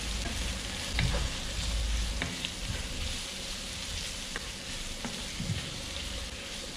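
Diced tofu with onion and red pepper sizzling in very hot oil in a nonstick frying pan while being stirred with a plastic spatula. A few light clicks and scrapes of the spatula against the pan sound over the steady sizzle.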